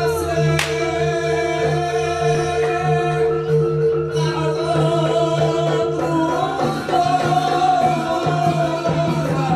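Live Javanese gamelan music accompanying a jaranan dance: steady held tones from the ensemble with mallet percussion under a wavering sung melody. A single sharp crack cuts in about half a second in.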